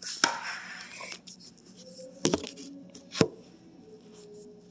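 Handling noise as a phone camera is set down: a rustle through the first second, with a sharp knock right at the start and two more about two and three seconds in.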